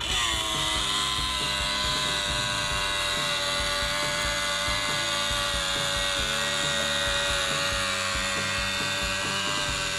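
A small electric motor whining steadily. It starts suddenly, slides down in pitch for about a second, then holds one steady pitch.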